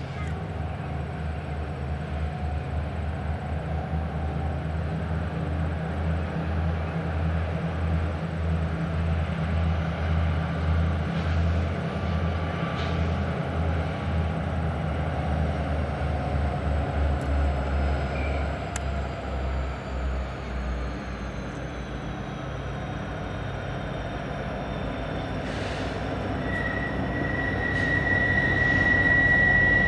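Norfolk Southern freight train's diesel locomotives passing, with a deep pulsing engine rumble that fades about two-thirds through. Near the end a steady high-pitched wheel squeal sets in: steel wheel flanges grinding against the rail on the tight curve.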